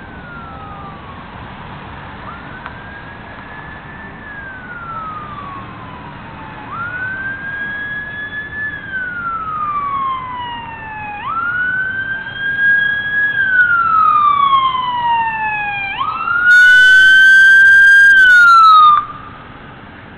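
Emergency vehicle siren on a slow wail, rising and falling in long sweeps and growing louder as it approaches. It is very loud and distorted for its last few seconds, then cuts off abruptly about nineteen seconds in.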